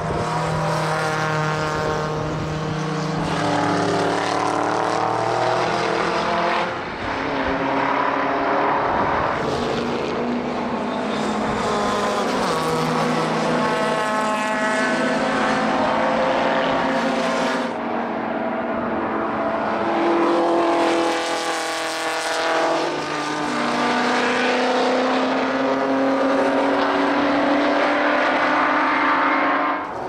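Historic race cars passing at speed one after another, their engines at high revs. Pitch rises and falls as each car goes by and shifts gear, with overlapping engines in places.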